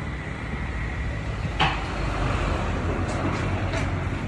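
A vehicle engine running steadily, with a single sharp knock about a second and a half in and a few light clicks later on.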